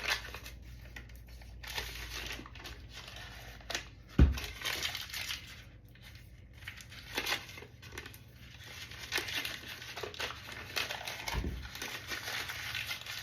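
Food packaging crinkling and tearing as it is opened and handled, in irregular bursts, with two dull thumps about four seconds in and near the end.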